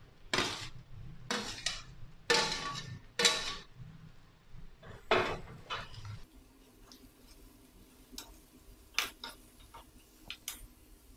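A spatula scraping and knocking against a pan and a steel bowl as chopped tomatoes are tipped in and stirred. There are about five loud strokes in the first half, then lighter clicks near the end.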